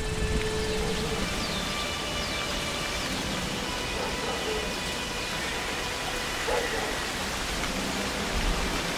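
Strong wind blowing in a dust storm, a steady rushing noise.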